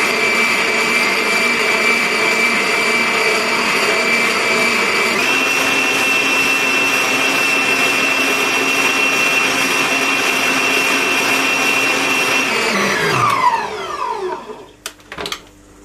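Electric stand mixer running steadily with a motor whine, whisking egg whites and sugar into meringue. Its pitch steps up slightly about five seconds in. Near the end the motor is switched off and winds down with a falling whine, then a few knocks as the mixer is handled.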